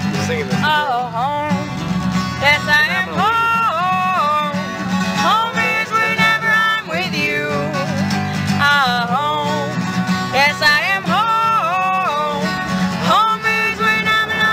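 A recorded song: a solo voice sings phrases with long held notes over a steady instrumental accompaniment.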